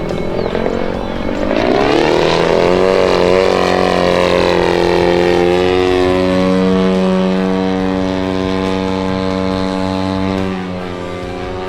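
Twin-cylinder two-stroke DA-120 gasoline engine of a giant-scale RC Yak 54 at high throttle. Its pitch climbs and wavers in the first few seconds, then holds a steady drone, easing off slightly near the end.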